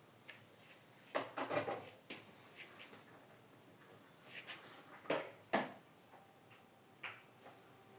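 Handling noise from a portable fan being worked on: a few light clicks and knocks of its parts, a cluster about a second in and two sharper ones around five seconds in.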